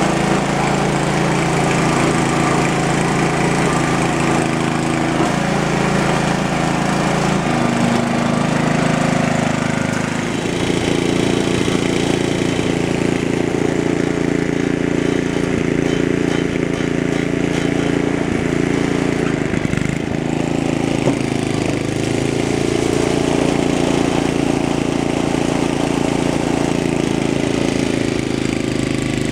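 Ariens Sno-Thro snowblower's 5-horsepower Tecumseh Snow King engine running steadily as the machine works through snow, its note shifting about a third of the way in.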